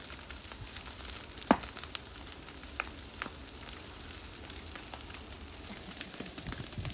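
Wildfire burning: a steady crackling hiss with scattered sharp pops, the loudest about a second and a half in.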